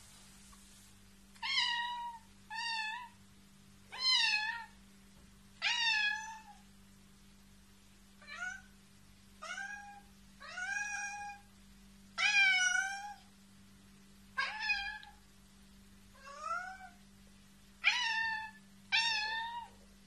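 A calico domestic cat meowing over and over, about a dozen meows each under a second long, one every second or two. A faint steady hum runs underneath.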